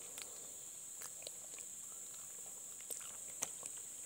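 Steady high-pitched drone of forest insects, with scattered small clicks throughout.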